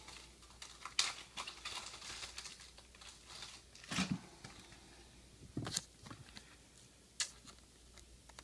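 Intermittent crinkling and rustling with a few sharp clicks, the loudest about a second in, at four seconds and near seven seconds: trading cards and plastic card sleeves being handled.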